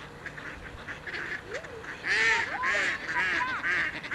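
A flock of mallards and white domestic ducks quacking: a few faint calls at first, then from about halfway through a quick series of about five loud quacks, roughly two a second.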